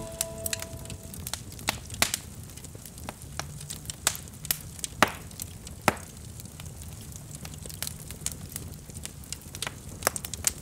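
Wood bonfire crackling: irregular sharp pops and snaps over the steady low rustle of the flames. The last of a music cue fades out in the first second.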